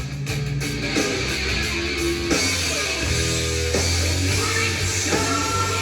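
Hard rock song with electric guitar and drums, playing from a vinyl record on a turntable.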